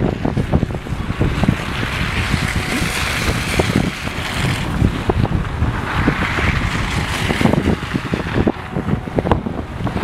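Strong wind buffeting the microphone, with cars passing close by on the snowy road, their tyre noise swelling up and fading twice, about two seconds in and again about six seconds in.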